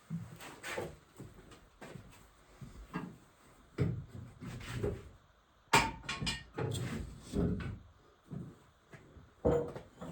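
Irregular knocks and clunks of metal parts and tools being handled while an NV4500 manual transmission is taken apart, with one sharp clank a little before six seconds as the loudest.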